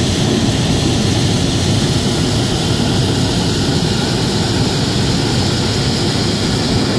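Hot air balloon's propane burner firing in one long, steady blast.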